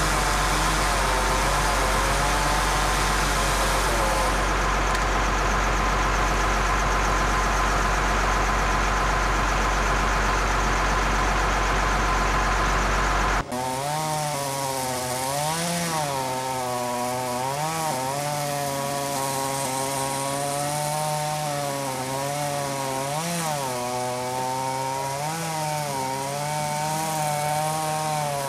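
Two-stroke chainsaw cutting hickory. For the first half it runs steadily at high speed. About halfway the sound changes abruptly, and from then on the engine speed dips and recovers every couple of seconds as the chain bogs in the tough wood.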